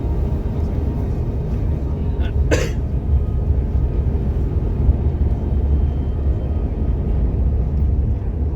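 Steady low rumble of a bus driving along the road, with a brief sharp sound about two and a half seconds in.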